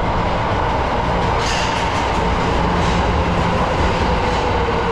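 Tokyo subway train running on the rails: a steady rumble with a constant whine over it and a lower tone that sinks slightly in pitch near the end.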